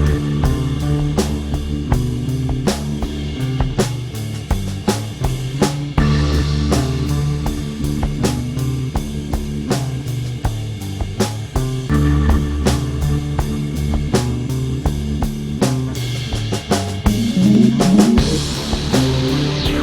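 Instrumental rock music: drum kit keeping a steady beat under bass and electric guitar, with a lead guitar line that bends upward near the end.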